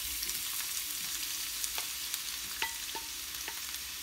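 Chopped raw onion sizzling steadily in hot oil in a frying pan, just tipped in. A few light, ringing taps in the second half as a wooden spatula scrapes the rest of the onion off a ceramic plate.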